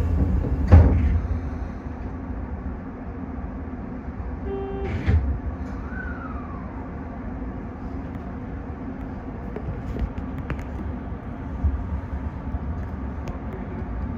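Rumble of a Toyo Rapid Railway 2000 series electric train heard from its cab, with a sharp clunk about a second in and a smaller knock around five seconds.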